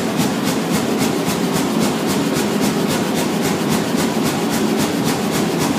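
Blacksmith's power hammer running at about six even blows a second over a steady mechanical din, forging a 60 mm round steel bar.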